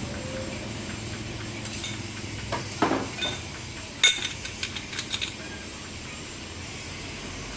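Metal clutch parts (pressure plate, plates and springs) clinking and knocking as they are handled and fitted, with a sharp clink about four seconds in followed by a quick run of lighter ones.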